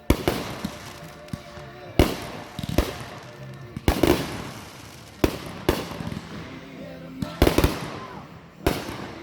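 Fireworks going off: about nine sharp bangs at uneven intervals, some close together in pairs, several followed by a crackling tail.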